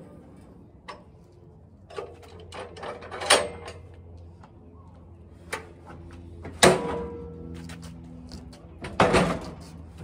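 A handful of separate knocks and clunks a second or more apart, the loudest about a third of the way in, two-thirds of the way in and near the end, from handling around a portable sawmill whose engine has stopped.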